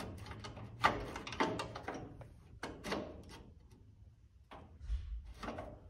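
The headlight and its mounting on a 1985 Chevrolet S-10 clunking and rattling as it is pushed and wiggled by hand, a string of irregular knocks. The headlight is being tested for how firmly it holds on newly added springs at the core support.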